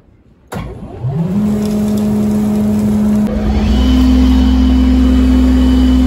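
Sawmill machinery starting up. The engine comes on suddenly, rises in pitch over about a second and settles to a steady run. About three seconds in the pitch steps up and a deep hum joins, as it is left running to warm up in the cold.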